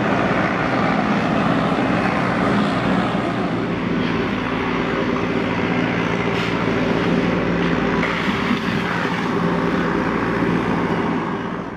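Police water cannon truck running, a steady engine drone under a broad steady hiss from its water jet.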